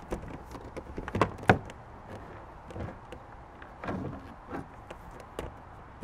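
Kayak seat frame being set back into place on a plastic kayak hull: a series of hollow knocks and clacks, the loudest two close together about a second and a half in, then a few lighter knocks later on.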